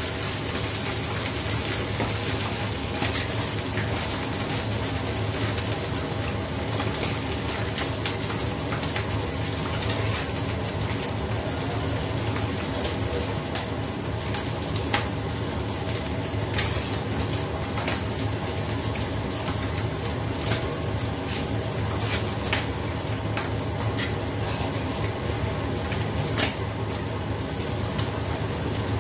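Fish fillets frying in oil in a skillet: a steady sizzle with frequent small spattering crackles, over a steady low hum, with a wok of vegetables boiling alongside.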